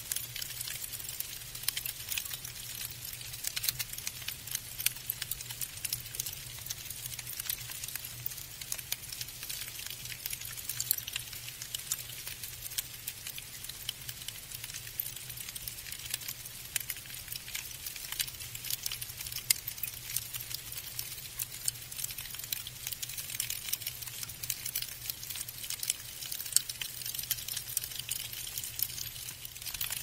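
Falling snow pattering: a dense, steady stream of tiny irregular ticks as snow grains land, with a faint steady low hum underneath.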